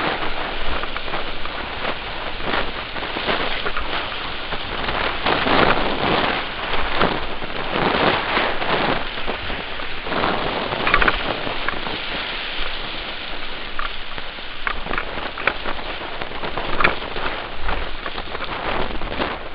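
Class 3+ whitewater rapid rushing and splashing as an inflatable kayak runs through it, with waves breaking over the bow and spray hitting the camera. A continuous loud rush broken by frequent sharper splashes.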